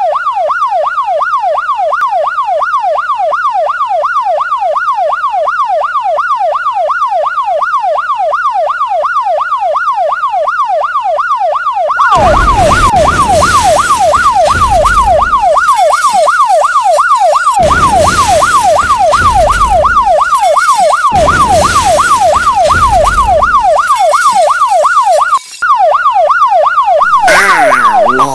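Police car siren wailing in a fast, even rise-and-fall yelp. About twelve seconds in, loud rumbling bursts of noise join it three times, each lasting a few seconds.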